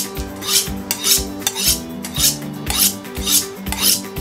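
Kitchen knife being honed on a honing steel: regular strokes of the blade drawn along the steel, about two a second, each a short metallic scrape.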